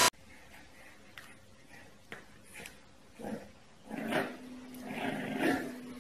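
A puppy growling. Several short growls start about halfway through, and a longer low growl follows near the end.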